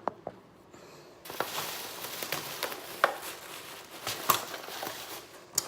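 Packaging rustling and crinkling as leftovers are handled, with a few sharp clicks and knocks. It starts about a second in.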